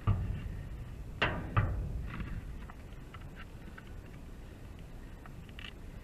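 Three sharp knocks: one at the start, then two close together just over a second later, each fading quickly, followed by a few faint clicks.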